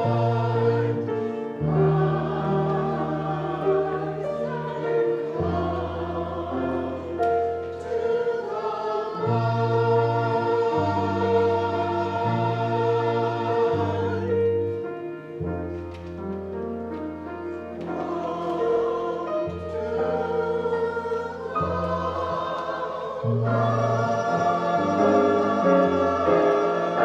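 A choir singing a hymn over sustained low accompaniment chords that change every second or two.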